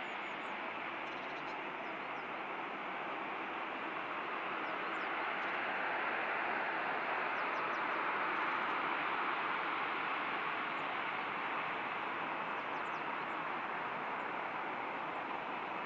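Boeing 737-800's CFM56-7B jet engines running at taxi power as the airliner taxis past, a steady rushing noise that grows a little louder midway and then eases.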